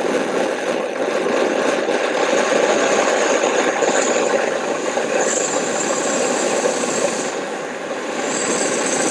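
Fire Maple FMS-300T canister gas stove burner running at high output, a steady roar with a high hiss that comes and goes. The valve is turned up too high, so the flames lift off the burner head.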